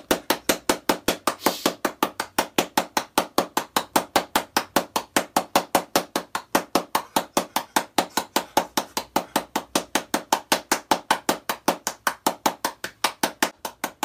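Rapid, even knocking or tapping, about five sharp knocks a second, kept up without a break.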